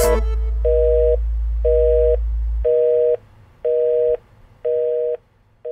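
Telephone busy tone: evenly spaced half-second beeps, about one a second, five in all with a sixth starting near the end. Under the first few beeps a low held note of the ending music runs on and stops about two and a half seconds in.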